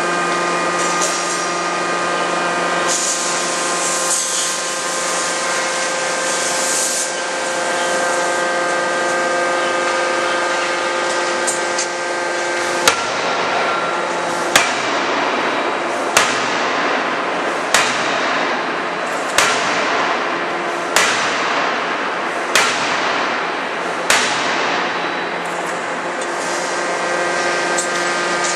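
200 kJ CNC fully hydraulic die forging hammer striking a steam turbine blade forging in the die: eight sharp blows about one and a half seconds apart, each with a short ringing tail, starting about halfway through. Under them runs a steady machine hum with several held tones, with a hiss a few seconds in.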